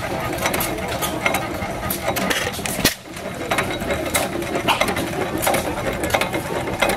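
1916 9-horsepower hit-and-miss stationary gas engine running smoothly, with a quick, uneven clicking from the engine, two to three clicks a second.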